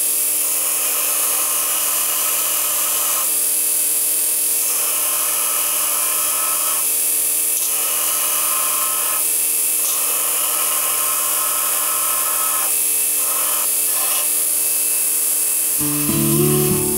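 Belt grinder running while a steel axe head is ground against its abrasive belt in repeated passes, the grinding note coming and going every few seconds as the steel is pressed on and lifted off. Acoustic guitar music starts about a second before the end.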